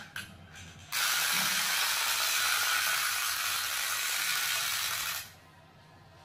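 Clockwork motor of a small plastic wind-up toy horse: a few clicks of its key being wound, then a loud, steady mechanical whir as the spring unwinds and drives the toy along. The whir cuts off abruptly about five seconds in.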